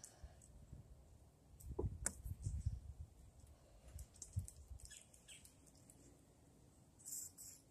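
Faint handling sounds of a WD-40-soaked paper towel being rubbed along a rubber windshield wiper blade to clean it, with a few soft knocks and short high scraping sounds.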